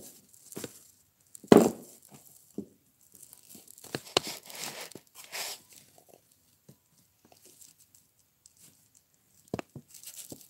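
Handling noise: scattered rustles and small knocks as hands turn a plastic horse figurine close to the phone, with the loudest knock about one and a half seconds in and another near the end.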